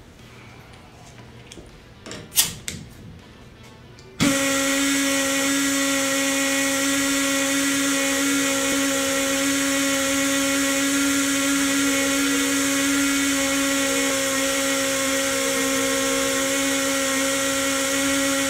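Tri Tool 208B pipe beveling machine's air motor starting suddenly about four seconds in and running at a steady pitched whine with a strong air hiss, as it counterbores the end of stainless steel pipe. A couple of sharp knocks come just before it starts.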